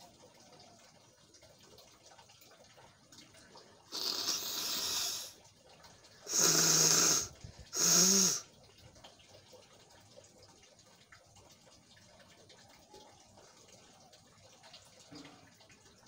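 A person blowing their nose hard three times, each blow about a second long; the first is softer, the last two louder, with a low rattle.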